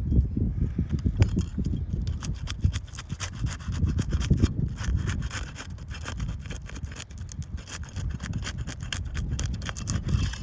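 The adhesive seal strips of 3-tab asphalt shingles are being broken loose. There is rough scraping with fast, dense crackling as the sealed tabs are pried up and tear away, and the crackling is thickest from about two seconds in.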